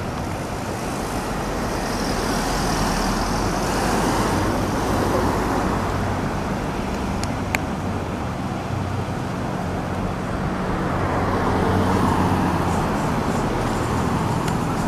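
Car engine hum and road noise from a slowly moving car in traffic, steady throughout, with one sharp click about halfway through.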